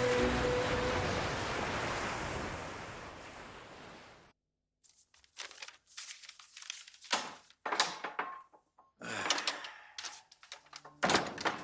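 Theme music fading out over a rolling, surf-like hiss. After a moment of silence come scattered knocks, clicks and thuds in a small room, with the loudest near the end.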